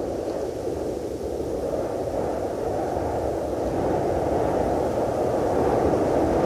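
Cold wind sound effect: a deep, steady rush of wind that slowly grows stronger.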